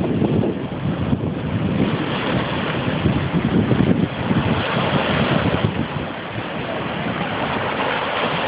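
Campfire burning in the wind, heard as a steady rushing noise with the wind buffeting the phone's microphone.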